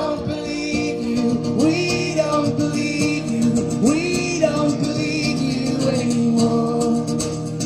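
Live acoustic guitar strummed steadily under a sung melody, the phrases sliding up into their notes and repeating every two seconds or so.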